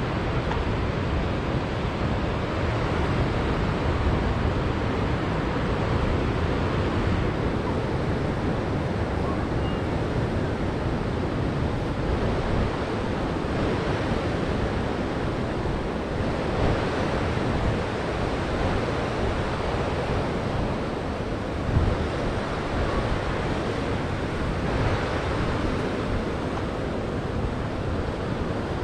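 Surf washing over a rocky shore with wind blowing across the microphone: a steady rushing noise, heavy in the low end, with one brief low bump about two-thirds of the way in.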